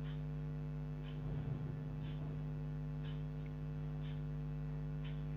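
A steady low electrical hum, with faint soft scrapes about once a second from a ladle stirring thick, cooking jaggery syrup around a non-stick kadhai.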